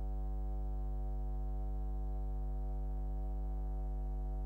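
Steady electrical hum: one low, unchanging drone with a ladder of even overtones and nothing else.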